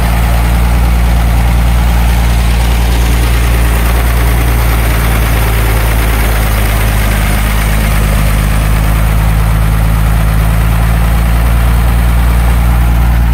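1948 Bedford truck's six-cylinder petrol engine idling steadily. The idle fluctuates a little, which the owner puts down to a badly worn carburettor.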